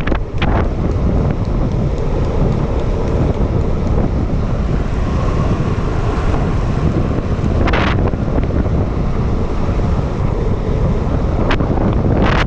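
Heavy wind buffeting an action camera's microphone at downhill longboarding speed, with the rumble of skateboard wheels on the asphalt underneath. A few short, sharp hisses or knocks cut through, the broadest about eight seconds in.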